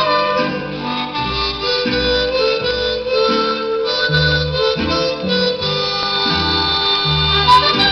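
Ranchera music in the mariachi style playing from a vinyl record through a stereo's speakers: an instrumental passage before the vocals, with sustained melody lines over a bass that changes note about twice a second.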